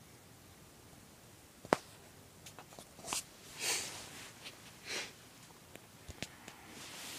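Quiet room tone with a sharp click about a second and a half in and a few fainter clicks, then three short breathy sniffs close to the microphone in the middle.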